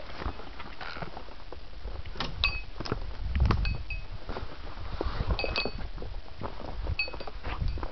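Footsteps rustling and crackling through dry leaf litter, with a small bell giving short tinkles several times, each a brief ring at the same two pitches.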